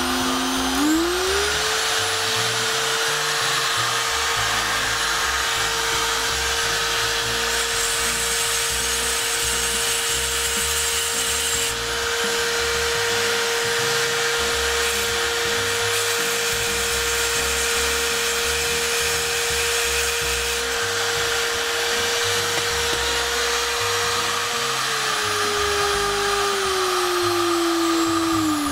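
Parkside PGS 500 A1 500 W electric die grinder running free with a grinding stone fitted. Its motor whine rises in pitch about a second in as the speed is turned up, holds steady, then steps back down near the end as the speed is lowered. Some seconds in, a short stretch of added high hiss as the stone makes a small grind.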